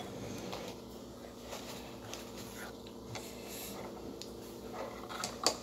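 Quiet eating sounds: faint chewing and small clicks of fingers and food on a plate, over a steady low hum, with one sharp tap near the end.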